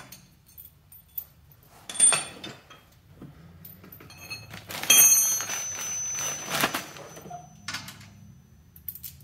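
Hand tools and hardware being handled: a sharp metallic clink about two seconds in, then a clear plastic parts bag crinkling and rustling as a hand digs into it, with a few more small clinks and knocks.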